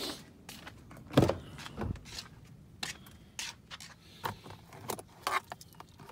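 Irregular clicks and knocks of objects being handled, with one loud thump about a second in.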